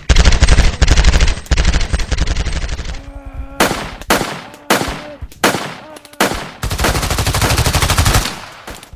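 Machine-gun fire: rapid automatic fire for about three seconds, then several short separate bursts, then another long burst of rapid fire near the end.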